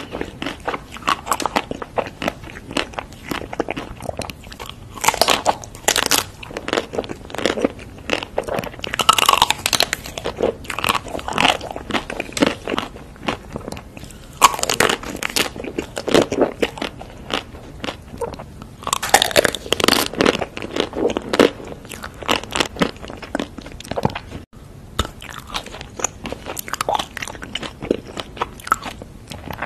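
A person biting into and chewing chocolate-coated snacks: crunchy bites every few seconds with softer chewing between.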